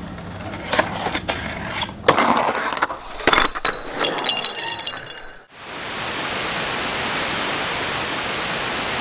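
A quick run of sharp metallic clinks and knocks, some of them ringing. Just past halfway they cut off and give way to a steady hiss of video static.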